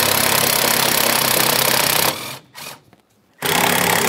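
Cordless power ratchet spinning the master cylinder's mounting nuts off the brake booster studs: a steady motor buzz that runs about two seconds, stops, and starts again near the end.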